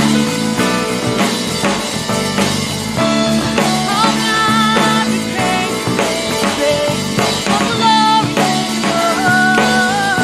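Live worship band playing a rock-style song with drums, bass guitar, acoustic guitar and keyboard, and a woman singing lead into a microphone, her sung line rising in about four seconds in and again near the end.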